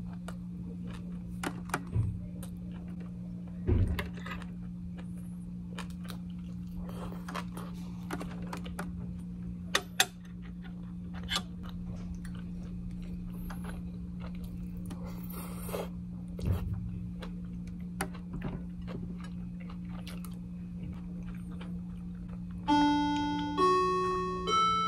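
Metal chopsticks and spoon clicking against stainless steel bowls during a meal, with chewing, over a steady low hum. Near the end a PA chime plays a rising run of ringing notes, the signal before an announcement.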